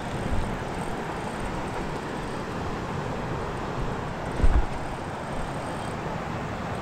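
Steady rushing wind noise on the camera microphone, with a short low thump of handling noise about four and a half seconds in as the spinning rod is cast and the reel taken up again.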